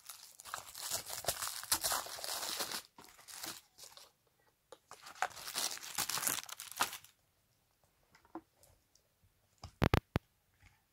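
Packaging crinkling and tearing as cosmetics are unwrapped and handled, in two spells of crackling, followed by a few sharp clicks near the end.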